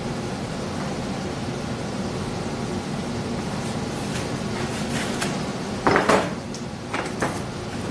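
Steady background hum, then about six seconds in a brief metallic clatter of hand tools being picked up off a toolbox top, followed by two lighter clicks.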